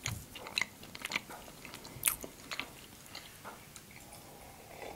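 Close-up chewing of kozinaki, a crunchy seed-and-nut brittle, with a series of sharp crunches over the first two seconds or so, then quieter chewing.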